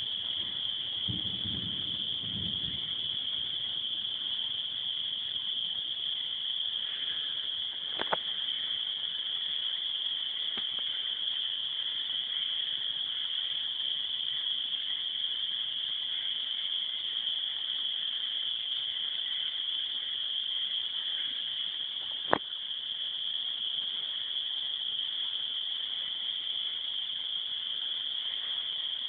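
Steady, high-pitched chorus of calling frogs, blending into one continuous trill. There are two sharp clicks, about 8 and 22 seconds in, and a brief faint low rumble near the start.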